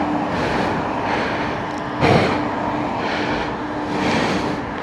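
Hard, rhythmic breathing picked up by a microphone inside a motorcycle helmet, rising and falling about once every second, over a constant rush of wind and road noise. There is a sharper swell of noise about two seconds in.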